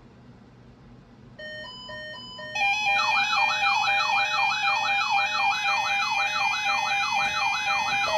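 Faint hiss, then an electronic alert alarm of the kind a weather alert receiver sounds for an emergency alert test. A few short beeps at different pitches come first. About two and a half seconds in, it turns into a loud, fast warbling siren tone, about two and a half sweeps a second, over steady beeping.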